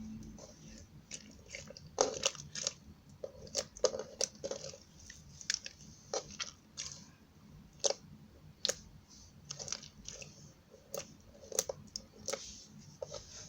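Metallic slime being squeezed and poked by hand, giving irregular wet clicks and crackly pops as air pockets burst.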